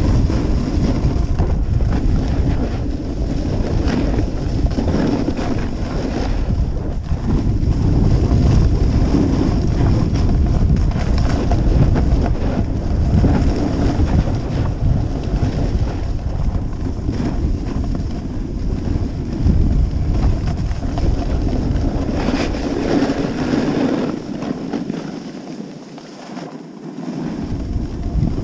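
Wind buffeting the microphone of a camera carried down a groomed ski run at speed, a steady low rumble that eases for a couple of seconds near the end.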